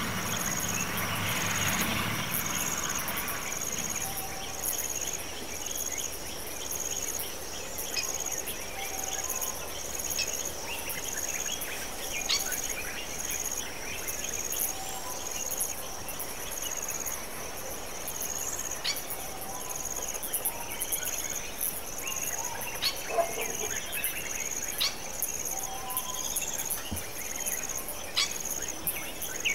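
Insects chirping steadily in the grass, a high, evenly repeating pulse about one and a half times a second, with short sharp bird calls now and then. A vehicle engine dies away in the first few seconds.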